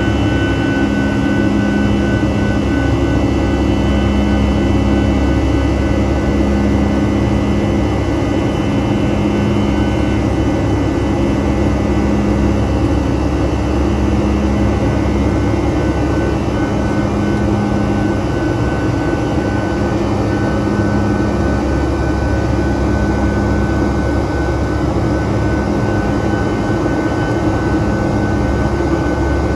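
Boeing 757-200's Rolls-Royce RB211-535E4B turbofan engines running steadily during the climb after takeoff, heard inside the cabin as a constant jet roar with a steady whine. A low hum swells and fades about every two seconds.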